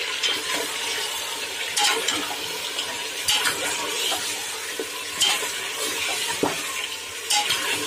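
Meat pieces frying in hot ghee in an aluminium pressure cooker, sizzling steadily while a steel spoon stirs them, with several sharp scrapes and clinks of the spoon against the pot.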